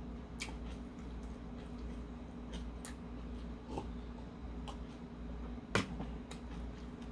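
Close-up mukbang eating sounds: scattered small clicks and smacks of mouth and fingers while a leaf wrap of bulgogi is folded and a sip of makgeolli is taken, with one louder click just before six seconds. A steady low hum runs underneath.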